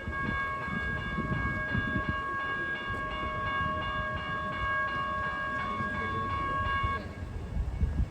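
Multi-tone horn of a Metro Trains Melbourne EDI Comeng electric train sounding in one long blast of about seven seconds, then cutting off, over the low rumble of the train.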